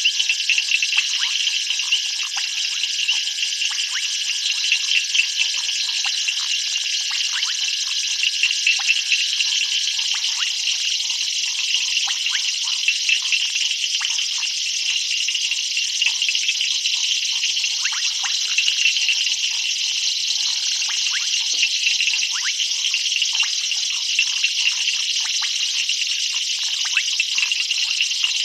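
Dense night chorus of frogs and insects: a constant mass of overlapping high chirps, clicks and trills with no pause.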